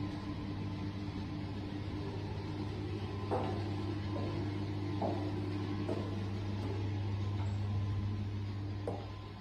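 A steady low mechanical hum with a few faint steady tones above it, with four soft knocks. The hum drops a little near the end.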